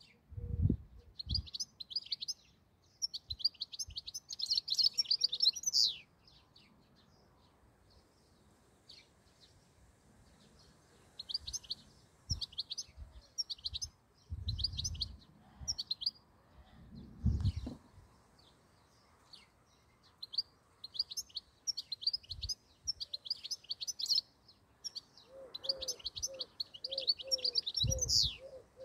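European goldfinch singing: bouts of rapid, high twittering notes and trills, the first lasting about six seconds, then a pause of about five seconds before two more bouts.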